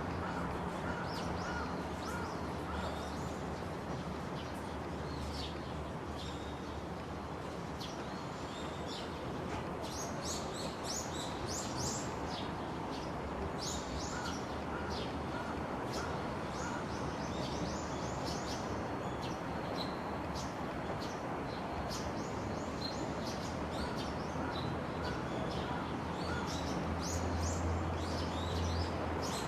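Songbirds chirping, many short quick calls overlapping, over a steady hiss of outdoor background noise. A low hum grows louder near the end.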